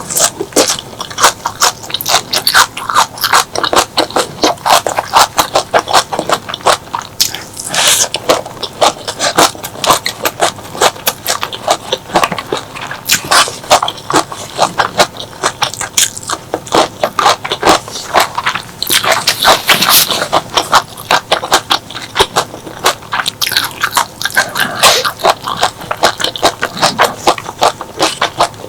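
Close-miked eating sounds: continuous crunchy chewing and biting, a dense run of irregular crisp clicks and crackles with louder flurries now and then.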